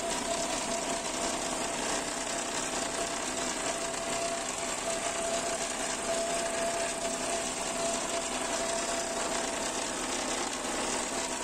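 Mazda CX-3's electric radiator cooling fan motor running under the bonnet, a steady rushing noise with one constant tone over it. This is the noisy fan motor the car was brought in for, which makes a racket whenever the engine is started.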